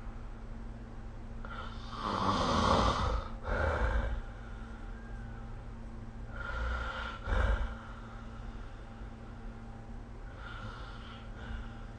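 A sleeping person snoring, three snores a few seconds apart, each a longer rasping breath followed by a short one. The last snore is fainter. A steady low hum runs underneath.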